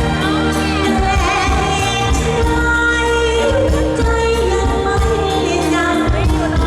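Live Thai stage band playing with a singer: a wavering sung melody over steady bass and a regular beat, loud and amplified.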